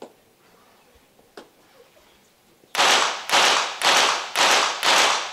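Five quick pistol shots, about half a second apart, each with a short echo of an indoor range. They are one full five-shot series from a .22 Short rapid-fire pistol, fired at five turning targets.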